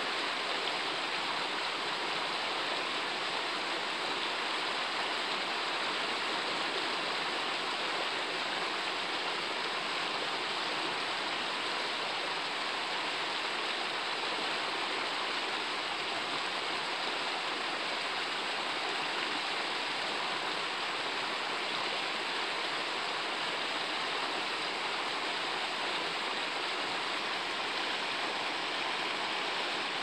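Flowing river water: a steady, even rush with no breaks or distinct events.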